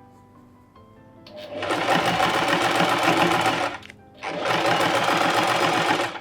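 Small electric kitchen appliance motor running in two bursts of about two and a half seconds each, switched off briefly in between, with soft music underneath.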